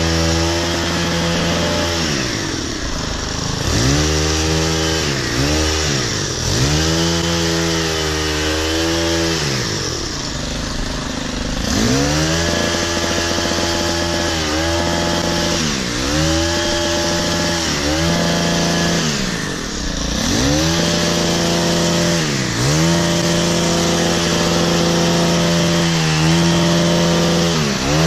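Stihl KM90R KombiMotor's 4-MIX engine driving an articulating hedge trimmer attachment, revving high and falling back toward idle again and again as the throttle is worked while cutting a hedge.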